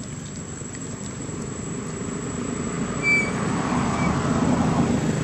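A motor engine drones, growing steadily louder as it draws nearer. A brief high chirp comes about three seconds in.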